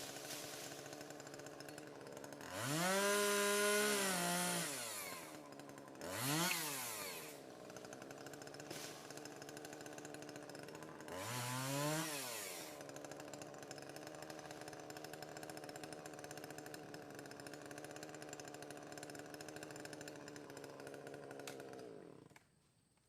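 Chainsaw engine idling and revved up three times, the first rev held for about two seconds and the others brief, then shut off shortly before the end.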